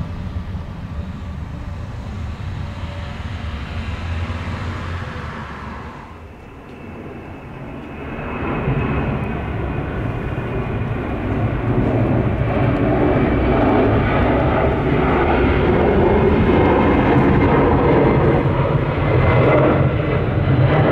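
Departing twin-engine jet airliners climbing out: the low rumble of a British Airways jet climbing away, then after a break about six seconds in, the jet engine noise of a United Boeing 767 swells and stays loud as it climbs past.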